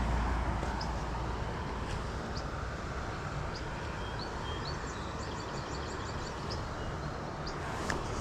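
Steady rushing of water pouring out of a lake outflow, with small birds chirping over it, including a quick run of chirps about halfway through.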